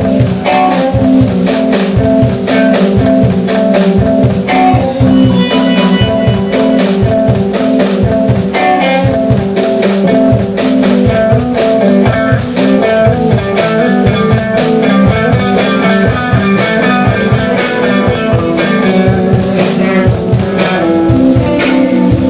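Blues band playing an instrumental passage: electric guitar and electric bass over a drum kit, with quick runs of notes in the lead.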